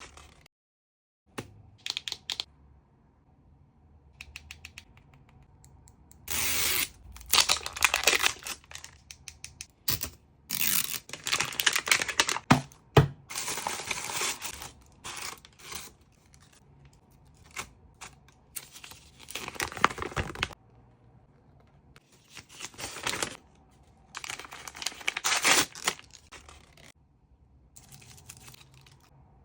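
L.O.L. Surprise toy packaging being unwrapped by hand: wrappers torn open and crinkled in several bursts of rustling, with small hard clicks of plastic pieces between them.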